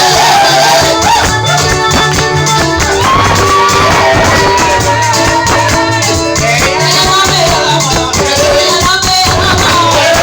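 Loud gospel praise music: singing over a band with bass and drums, with a shaker rattling along.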